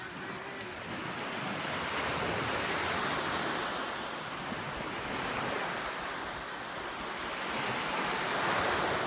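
Small waves breaking and washing up a sandy beach. The surf swells about two to three seconds in and again near the end.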